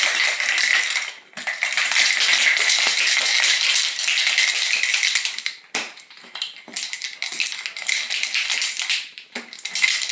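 Ice cubes rattling inside a metal cocktail shaker shaken hard by hand, broken by brief pauses about a second in, around six seconds in, and near the end.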